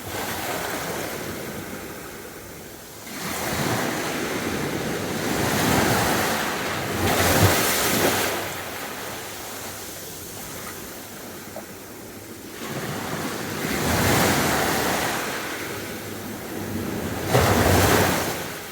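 Sea waves breaking and washing up the beach: a rushing surf sound that swells and falls back in three long surges, the last near the end the loudest.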